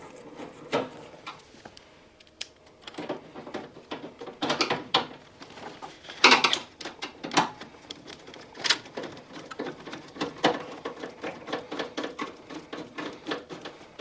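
Irregular clicks, taps and scrapes of hand work on a washing machine: a hand screwdriver driving screws into the metal front bar, then the plastic control panel and its wiring being handled. The louder clusters come about six and nine seconds in.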